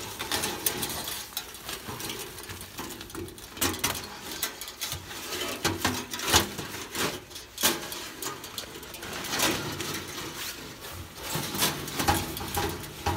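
A folding titanium camp stove being handled and set in place: irregular light metallic clinks and knocks, with the two loudest knocks a little after the middle.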